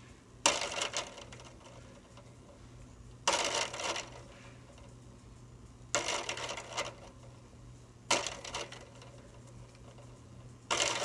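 Harbor Breeze Square 52 ceiling fan running on high speed. A steady low motor hum runs under a bright metallic clinking rattle that comes back about every two and a half seconds.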